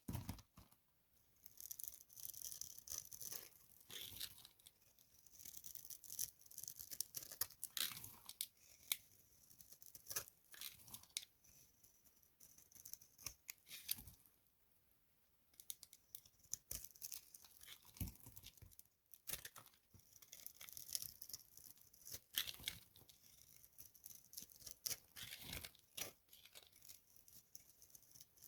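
Dry soap being crushed, giving a dense, crisp crackling and crunching that comes in bursts, with brief lulls about a second in and around the middle.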